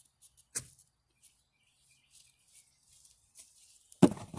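Digging in soil with a shovel: a short sharp scrape of the blade about half a second in, faint small ticks of dirt in between, and a loud thud of the blade driving into the dirt near the end.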